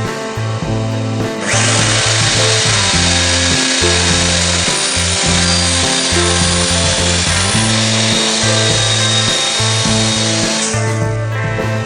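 A power tool running on wood for about nine seconds, starting about a second and a half in and stopping near the end, over background rock music.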